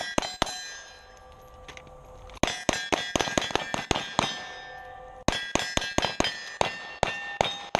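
Rapid strings of pistol shots hitting steel targets, each hit leaving the plates ringing: a few shots at the start, then two fast strings, the first from about two and a half seconds in and the second from about five seconds in to the end.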